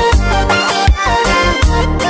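Background music: an instrumental stretch of a song with a steady, regular beat and a bass line, in an Afrobeat-like style.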